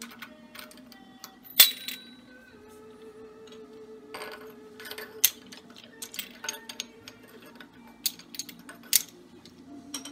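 Clinks and taps of glass and metal lamp parts being handled and set down, the loudest a sharp clink about one and a half seconds in, over soft background music.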